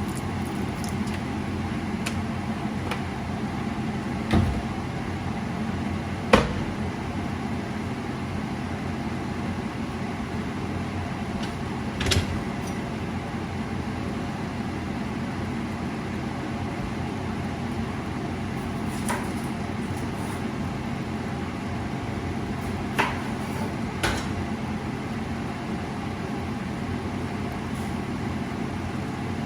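Steady low running hum, with a few sharp knocks and clicks scattered through it.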